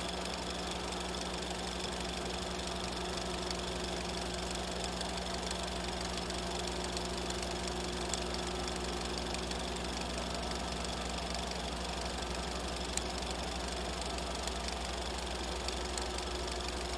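Film projector running, a steady rapid mechanical clatter over a low hum, with a couple of brief sharper clicks about eight and thirteen seconds in.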